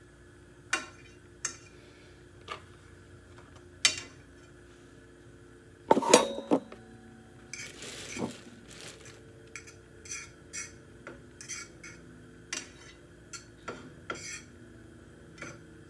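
Scattered light clicks and clinks of a utensil against a skillet, with a louder clatter about six seconds in and a brief scrape just after.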